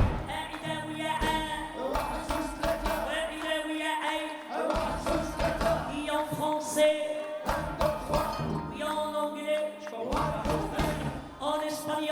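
Live Arabic music: a melodic instrumental passage with sustained notes over steady hand-drum percussion, between sung lines of a song.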